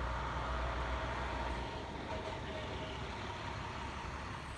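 Heavy truck engines running at idle: a steady low rumble that eases about a second and a half in, with a faint hum above it.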